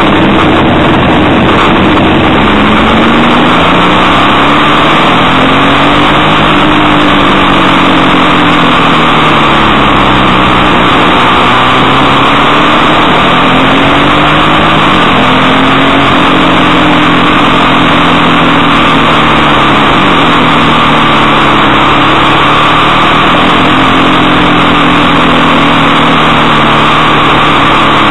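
Motorcycle engine heard from the rider's seat, its note rising and falling repeatedly with the revs, under a loud steady rush of wind.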